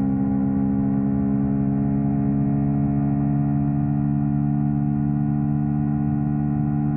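Yamaha R3 motorcycle's parallel-twin engine running at a steady speed, an even drone that holds one pitch.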